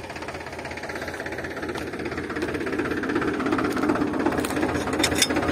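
Powertrac 439 tractor's diesel engine idling steadily with an even knocking beat. A few sharp clicks come near the end.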